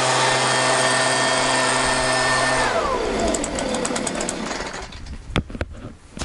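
Leaf blower running steadily with a high fan whine, then shut off about two and a half seconds in and winding down, its pitch falling away. A few sharp knocks follow near the end.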